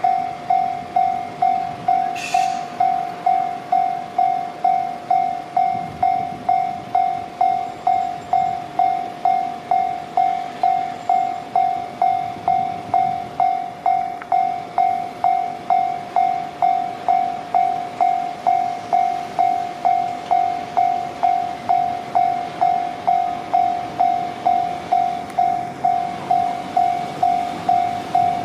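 Japanese electronic level-crossing alarm ringing, one ding repeating evenly about twice a second. A train rumbles faintly underneath, with a brief high squeal about two seconds in.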